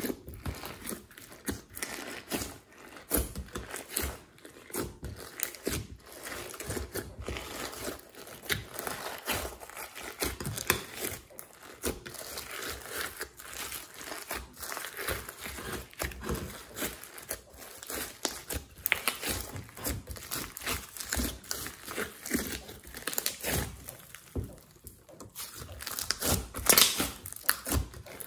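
Hands squeezing and kneading slime mixed with clay and glitter, giving a dense, irregular stream of small squishy clicks and pops, louder near the end.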